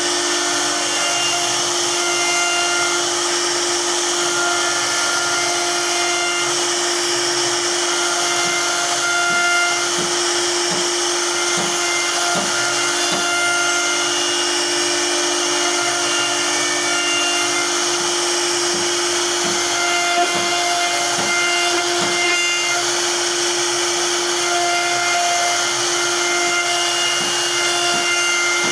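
CNC router spindle motor running with a steady whine while its small cutter carves a relief into solid wood, over a constant cutting hiss. Higher whining tones come and go every second or two as the carving head moves.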